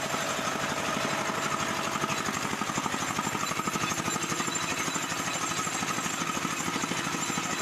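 Small GX-type petrol engine driving a drilling machine, running steadily with a fast, even beat.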